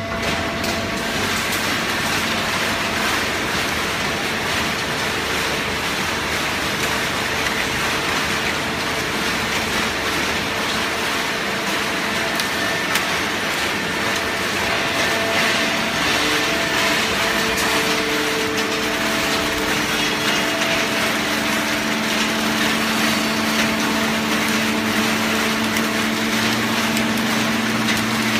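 Fully automatic horizontal hydraulic baling press running: a continuous dense machine noise with a steady hum from its hydraulic pump and motor, and fine crackling. A second, lower hum joins about halfway through and grows stronger near the end.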